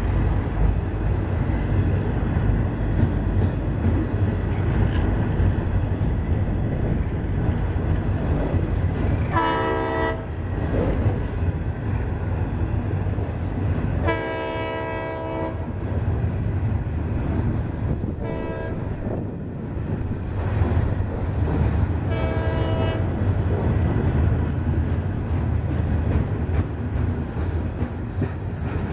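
Freight train of steel-coil flatcars rolling past, its wheels rumbling on the rails. Over it, the diesel locomotive's multi-note air horn sounds four blasts in a long, long, short, long pattern, the grade-crossing signal.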